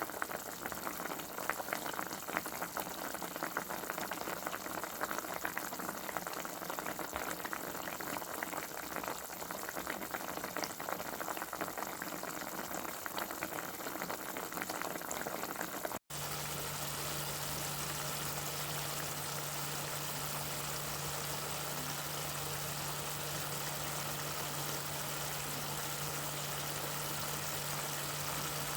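Liquid boiling in a pot, a dense run of small bubbling pops. About halfway through it cuts off abruptly and gives way to a steadier, smoother hiss with a constant low hum underneath.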